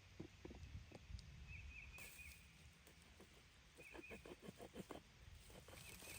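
A small bird repeating a short three-note chirp about every two seconds, over faint irregular knocks and taps.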